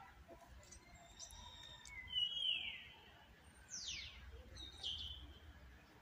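Wild birds calling: several short chirps and whistles, two of them sliding steeply down in pitch, the loudest between about two and four seconds in.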